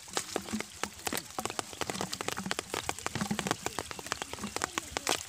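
A quick, irregular patter of small water splashes and drips, like rain.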